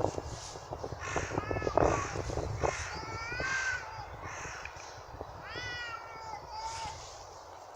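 Cats yowling: several drawn-out, wavering calls that rise and fall in pitch. A run of sharp clicks or knocks sounds under the calls in the first three seconds, loudest right at the start.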